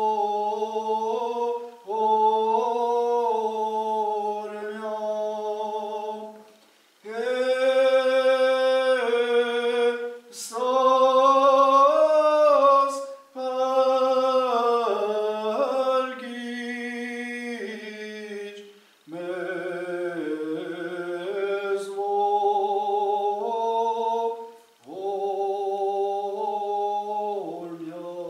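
A man's voice singing unaccompanied sacred chant in a church: long held notes that step in pitch, in phrases of a few seconds with short breaks for breath.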